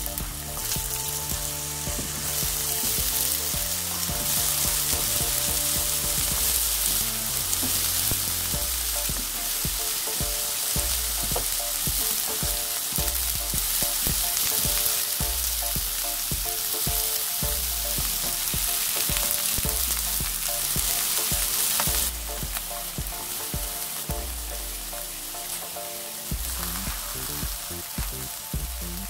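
Lotus root slices and kkwari peppers sizzling in hot oil in a frying pan, with scattered light clicks. The sizzle builds within the first second or two and drops noticeably about three-quarters of the way through.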